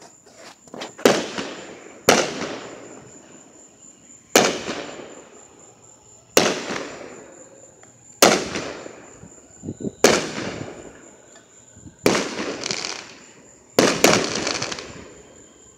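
Aerial fireworks bursting overhead: about eight sharp bangs, roughly one every two seconds, each trailing off in a fading crackle and echo.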